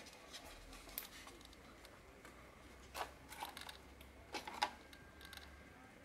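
A few faint clicks and knocks of a Keychron K4 keyboard's stripped plate and circuit board being handled and lifted out of its case.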